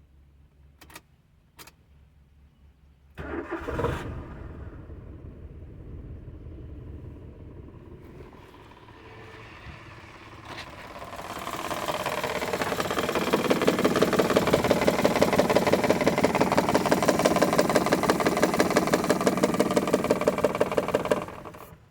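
Maruti Alto K10's three-cylinder petrol engine starting about three seconds in and running at idle. It is then revved up gradually and held at raised speed with an even pulsing, and cuts off just before the end. The car has a misfiring complaint with a blinking check-engine light.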